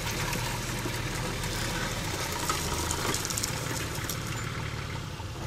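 A vehicle engine idling: an even, low hum.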